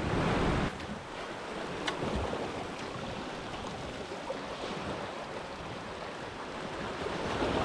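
Sea surf washing and foaming against a rock ledge, a steady hiss of moving water, louder for the first moment and then settling to a softer wash.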